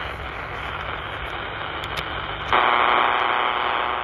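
PNI Escort HP 82 handheld CB radio hissing with receiver static on channel 23 AM. The hiss jumps suddenly much louder about two and a half seconds in.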